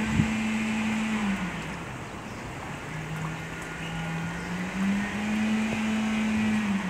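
Steady rain, with a low motor hum under it that drops in pitch about a second and a half in and climbs back up near the middle.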